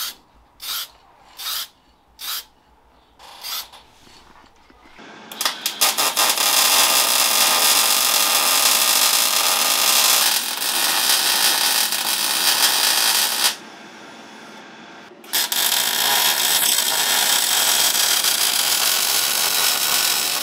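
A few short hisses from an aerosol spray can putting primer on a steel diff guard. Then electric arc welding takes over: the loud, steady crackling hiss of the arc as bump stop extensions are welded onto the axle, broken by one pause of about two seconds past the middle.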